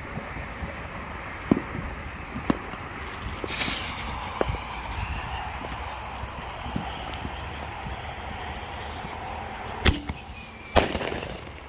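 Whistling artillery shell firework fired from a fiberglass mortar tube: a loud lift-off about three and a half seconds in, followed by whistling that fades away, then two sharp bangs near the end with a brief high whistle between them.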